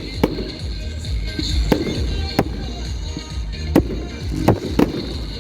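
Fireworks going off: about six sharp bangs at uneven intervals over a low rumble.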